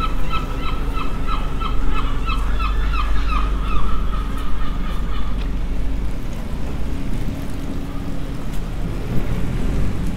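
A bird calling in a rapid series of short, repeated notes, about three a second, stopping about five seconds in, over a steady low rumble.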